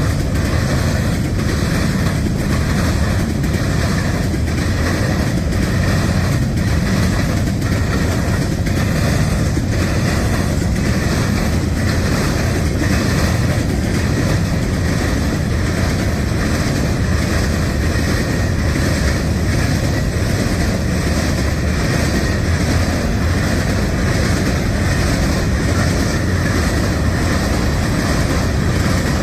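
Train rolling past, a steady loud rumble with a regular clickety-clack of wheels over rail joints.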